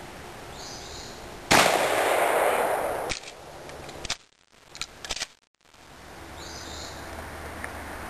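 A single blast from a 20-gauge Remington 870 pump-action shotgun about a second and a half in, with a rumbling tail that fades over about a second and a half. A few short, sharp clicks follow a few seconds later.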